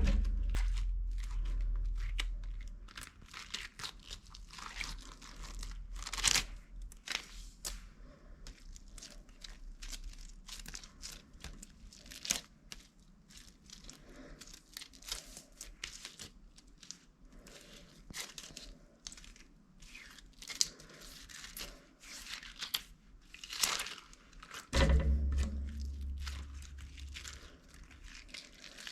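A bag of slime being squeezed and handled: crinkling plastic and dense, crackly, sticky clicks of slime, with a few louder crackling squeezes. There is a low bump about 25 seconds in.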